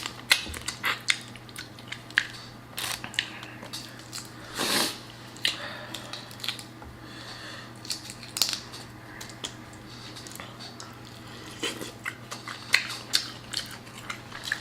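Close-miked eating of boiled crawfish and shrimp: shells cracking and peeling and food being chewed, an irregular run of sharp clicks, crackles and wet smacks.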